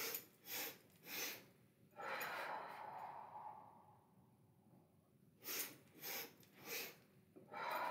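A woman doing Breath of Joy breathing: three quick, sharp inhales in a row followed by one long, full exhale, and then the same pattern again.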